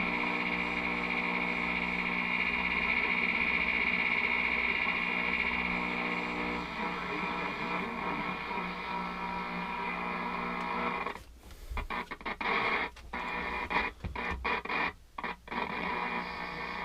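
AM radio static and steady interference tones from a 1967 GE alarm clock radio being tuned between stations. About eleven seconds in, the sound cuts out and comes back several times in quick succession.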